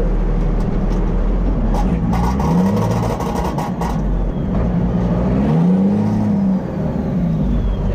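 Monster truck engine running, heard from inside the cab, revving up and falling back twice.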